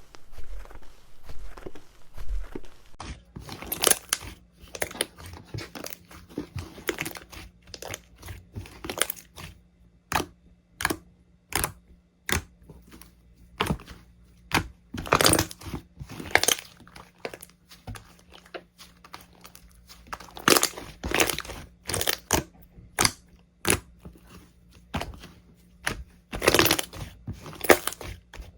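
Slime worked by hand, giving irregular sharp crackles and pops. They start about three seconds in and come in denser clusters now and then.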